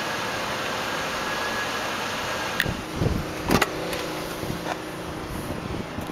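Steady background noise, with a click and a heavier clunk about three to three and a half seconds in as the limousine's rear door is unlatched and swung open.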